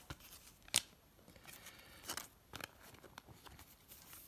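Trading cards being handled: a few light, sharp clicks and snaps of card stock, the sharpest about a second in.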